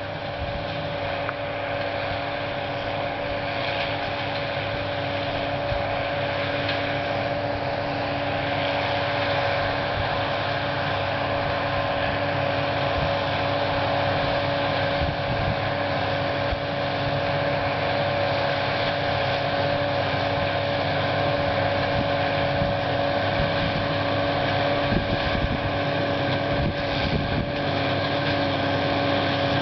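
John Deere 7320 diesel tractor running a John Deere 854 round baler: a steady engine and machinery drone with a constant whine, gradually growing louder.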